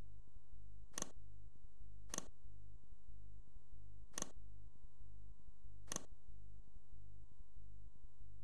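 Computer mouse clicking four times at uneven intervals, some clicks heard as a quick double press-and-release, over a steady low electrical hum.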